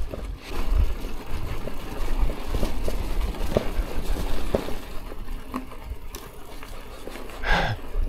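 Bicycle being ridden over a rough dirt track, with a low rumble of wind and tyres and scattered knocks and rattles from the bike. A brief higher-pitched sound comes near the end.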